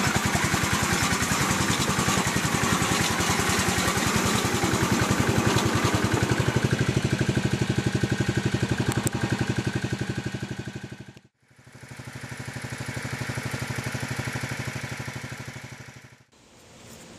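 Small engine of a ride-on 7.5-inch-gauge model diesel switcher locomotive running with an even, rapid pulse as the train rolls along the track. It cuts out abruptly about eleven seconds in, then comes back, swelling and fading away again near the end.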